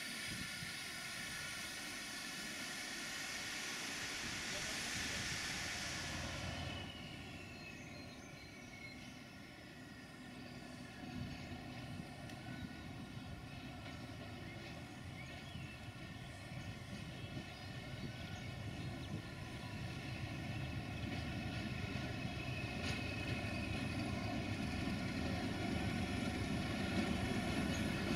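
British Rail Class 31 diesel-electric locomotive running, its English Electric V12 diesel giving a steady droning hum. A loud hiss cuts off suddenly about six seconds in, a faint falling whine follows, and the engine grows steadily louder toward the end.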